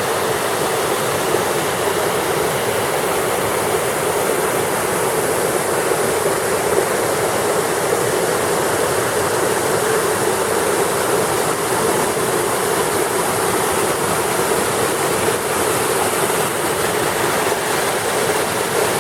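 Waterfall: water rushing and splashing in a loud, steady roar of noise.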